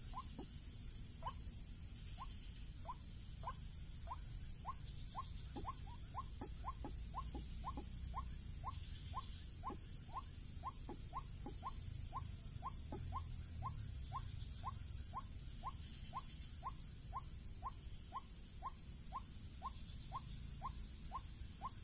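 White-breasted waterhen call: a long, even series of short, slightly falling notes at about two to three a second, quickening a little around the middle.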